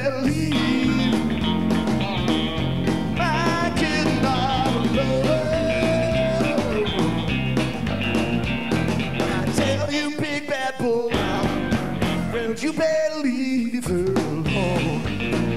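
Live rock and roll band: a man singing lead over electric guitar, bass and drums. The bass and drums drop out briefly twice, near the two-thirds mark and again shortly after, leaving the voice and guitar.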